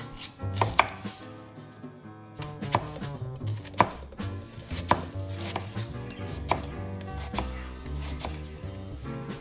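Knife chopping food on a cutting board, single sharp strokes at an uneven pace of roughly one a second.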